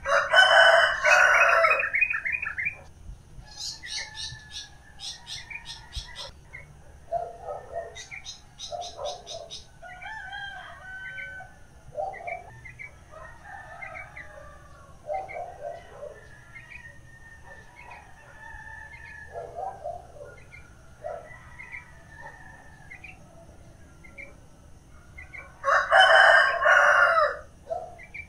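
Rooster crowing twice, once at the start and again near the end, the loudest sounds. Between the crows, smaller birds chirp in quick high trills and shorter calls come and go.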